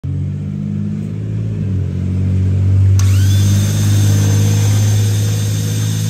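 2016 Ford Edge's 2.0-litre four-cylinder engine running steadily, with a rising whine about halfway through.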